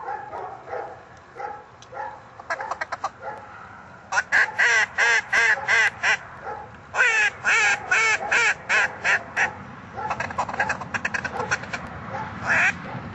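Duck call blown in runs of quacks: two loud runs of about six or seven quacks each, then a softer run and a single loud quack near the end. Fainter, slower calls come in the first few seconds.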